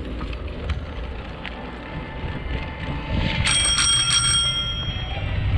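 A bicycle bell rung in a quick series of strikes about three and a half seconds in, its bright tones ringing on for a moment afterwards. Underneath is a steady low rumble of wind and riding noise.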